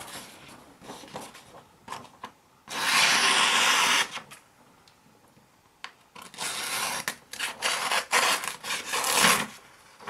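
Small pocket-knife blade slicing through a sheet of paper to test the sharpness of its factory edge: one long, even cut about three seconds in, then a quicker run of shorter slicing strokes in the second half.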